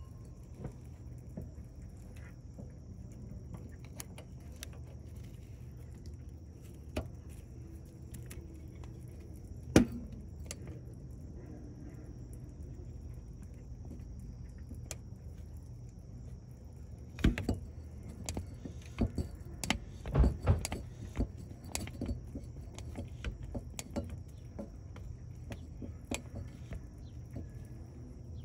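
Metal clicks and clinks of a grease gun worked on the zerk fitting of a trailer's leaf-spring equalizer: scattered single clicks, then a run of louder clicks a little past halfway.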